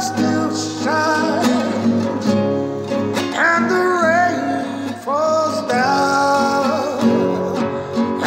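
A man singing a slow song, accompanying himself on a nylon-string classical guitar.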